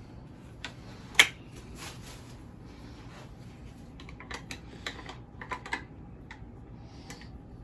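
Scattered sharp clicks and light knocks of hard statue parts being handled and fitted together. The loudest is a single sharp click about a second in, followed by a quick run of clicks a few seconds later.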